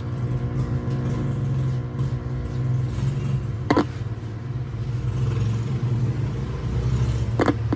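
Steady low electrical hum from a bench audio-test amplifier and its speaker, switched on while probing a TV mainboard's audio section for signal. Two sharp clicks, one about halfway through and one near the end.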